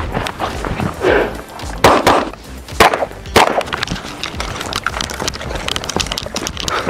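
Kriss Vector being fired: a few sharp gunshots, spaced about half a second to a second apart, each with a short echo, among lighter clicks and knocks.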